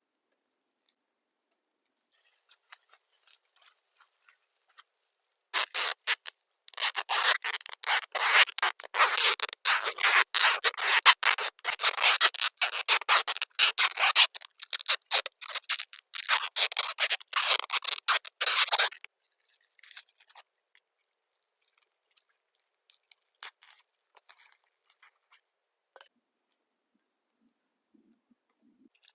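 Faint scratching, then from about five seconds in a dense run of short, rapid rasping strokes lasting about thirteen seconds, like material being cut or rubbed by hand, fading back to faint scratches near the end.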